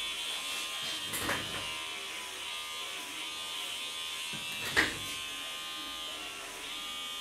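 Electric hair clipper buzzing steadily while it trims short hair at the nape, with a soft click a little over a second in and a sharp, louder click about two-thirds of the way through.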